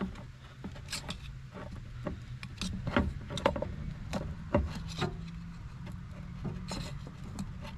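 Metal intercooler pipe being twisted and pulled off its rubber coupler in a car's engine bay: scattered knocks and clicks of the pipe and clamp against the surrounding parts, with some rubbing, over a steady low hum.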